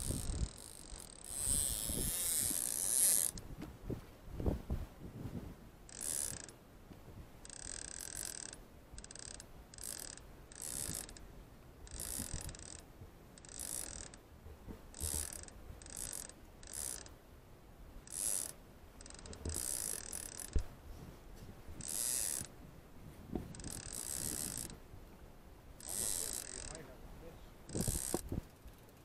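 Fishing reel being cranked to wind in line, in short spells of winding that repeat every second or two.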